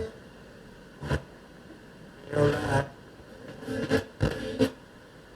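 A radio tuner being scrolled across the band: steady static hiss, with brief snatches of stations breaking through a few times, the longest about two and a half seconds in and a quick cluster of them near the end.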